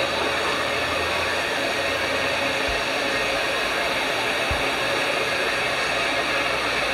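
Steady rushing hiss of a steam-hauled passenger train pulling away, with no distinct chuffs, and two brief low thumps in the middle.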